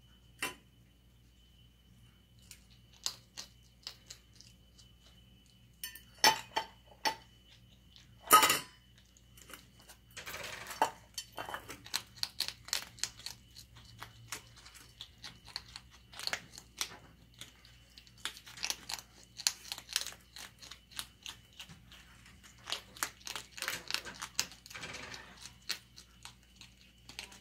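Striped skunks eating dry cat food from a stainless steel bowl: irregular clinks and taps of kibble and snouts against the metal bowl, with crunching as they chew, the loudest clink about 8 seconds in.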